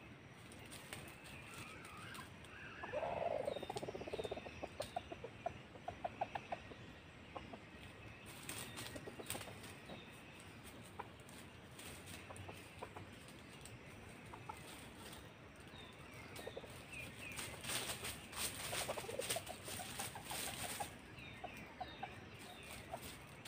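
Wild junglefowl roosters clucking in two runs of quick, low, evenly spaced clucks, with crackling rustle of dry leaf litter as they forage.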